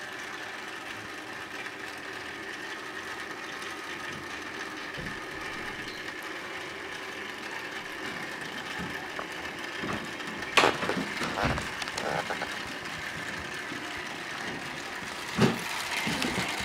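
Streams of water drops from a Kelvin water dropper falling into foil pie dishes, a steady hiss, with a few sharp clicks about ten and a half seconds and fifteen seconds in.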